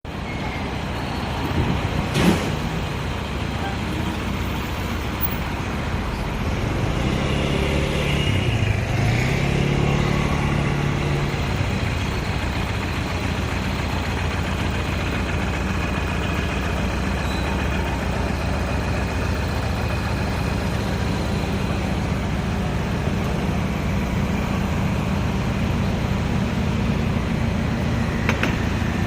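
Steady street traffic noise. An engine hum rises and falls as a vehicle passes about eight to twelve seconds in, and a single sharp knock comes about two seconds in.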